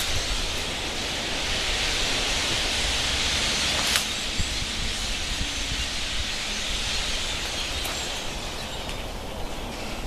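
A big flock of blackbirds calling all at once, their many calls merging into a dense, hissing din that thins out over the last couple of seconds, with a low rumble underneath.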